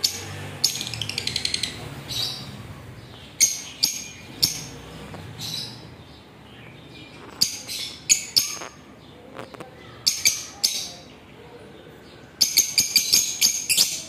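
Caged lovebirds chirping: short, shrill, high-pitched calls at irregular intervals, with quick runs of rapid chirps about a second in and again near the end.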